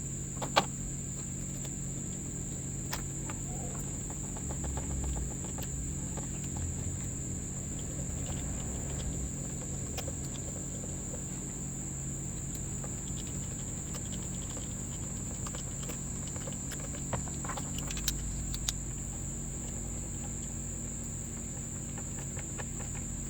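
Steady high-pitched chirring of insects, with scattered small clicks and taps from handling the chainsaw and its plastic starter cover while the screws go back in.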